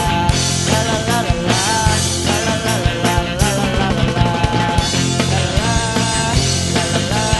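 Grunge rock band recording playing loudly, with electric guitars, bass and a drum kit in a dense full-band mix.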